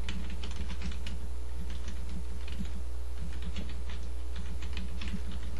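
Computer keyboard typing: an irregular, quick run of key clicks as a sentence is typed, over a steady low electrical hum.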